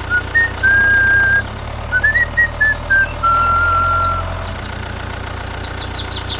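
A steady low engine hum, with a short whistled tune of stepping, gliding notes over it for the first three seconds or so, then the hum on its own.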